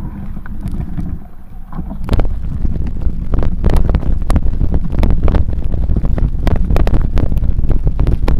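Wind buffeting a phone microphone on a moving bicycle, a loud low rumble with many knocks from the bike jolting over rough, muddy ground. It gets much louder about two seconds in as the bike picks up speed.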